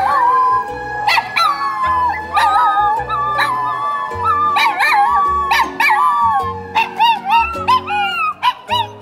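Two miniature schnauzers howling together in long, wavering calls, over background music.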